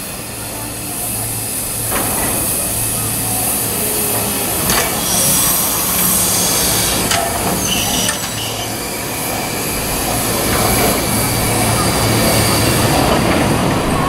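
C62 steam locomotive swinging round on a rotating turntable: a steady low hum over a constant hiss, with occasional clanks and knocks from the turning machinery, growing louder as the engine comes round.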